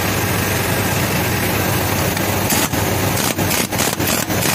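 Steady, loud mechanical running noise, broken by several brief dropouts in the second half.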